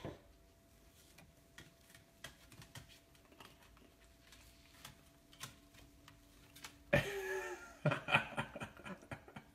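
Faint scattered clicks and taps, then about seven seconds in a short run of laughter-like vocalising that is the loudest sound, lasting about two seconds.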